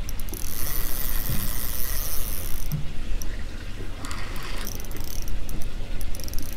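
ATC 4000H spinning reel's drag giving line to a hooked fish: a high-pitched mechanical whine for the first two and a half seconds or so, with a shorter, rougher burst about four seconds in. Low wind rumble on the microphone throughout.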